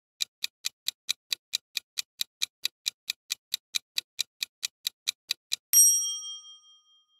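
Quiz countdown-timer sound effect: a clock ticking steadily, about four to five ticks a second, for about five and a half seconds, then a single bright ding that rings out and fades, marking the reveal of the correct answer.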